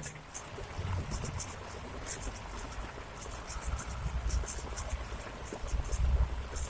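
Fast river water running, with an uneven low rumble and scattered faint high clicks.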